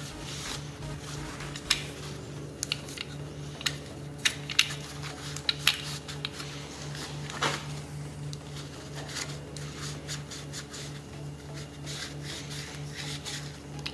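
Light clicks, taps and rubbing of a metal automotive throttle body being handled and cleaned, over a faint low hum that pulses evenly a couple of times a second.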